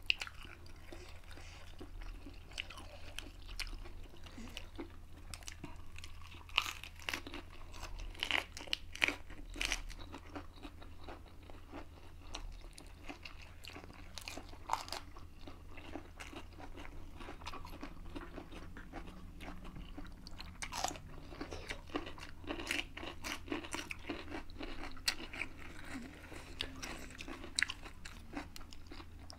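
Close-up crunching and chewing as crisp lettuce leaves are bitten and chewed, a rapid, irregular run of sharp crunches with wet mouth sounds, a few louder bites standing out.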